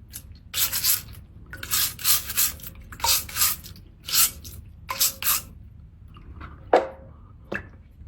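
A dirty seashell being scrubbed in about five rasping strokes, roughly one a second, followed by two short knocks near the end.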